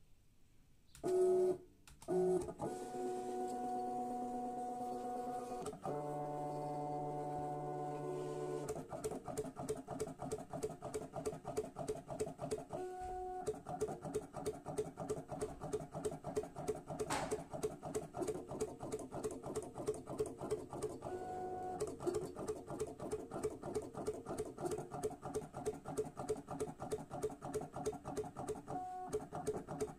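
CUTOK DC330 vinyl cutter's stepper motors whining as they drive the blade carriage and the paper, cutting a design. A short loud sound comes in the first two seconds, then a steady whine, which turns into a rapid stuttering pulse about nine seconds in as the cutter works through the shape.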